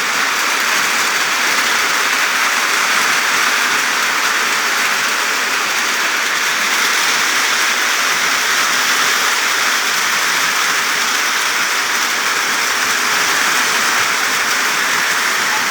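Rain falling steadily on plant leaves, an even, unbroken hiss of drops.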